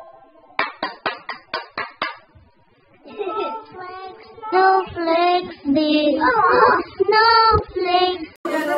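About six quick hand claps, then a child singing for several seconds.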